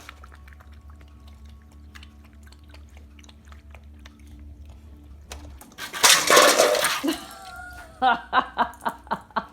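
A puppy falls into a water bowl about six seconds in: a loud splash and clatter lasting about a second. From about eight seconds, loud rapid bursts of laughter, roughly five a second.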